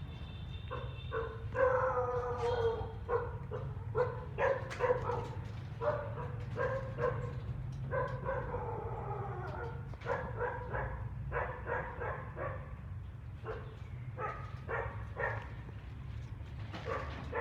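Dog whining and yipping in many short, high calls, some sliding down in pitch, over a steady low hum.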